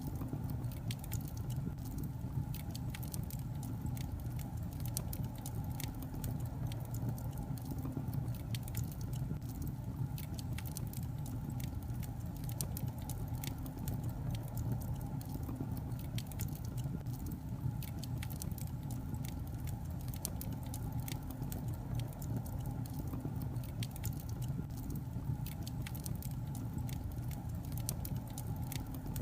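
Wood logs burning in a fireplace: continual crackling, with many small sharp pops over a low steady rumble of the fire.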